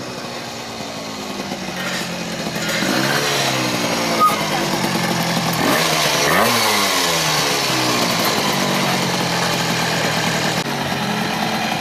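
Several MiniGP minibike engines idling and being revved, their pitches overlapping, with sharp rises and falls in revs about three and six seconds in.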